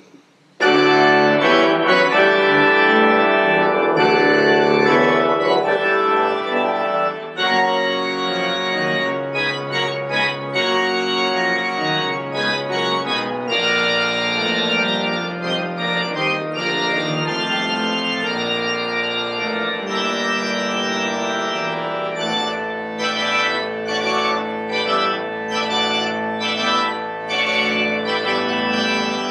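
Church organ played by hand: sustained chords over a moving bass line. It comes in suddenly about half a second in.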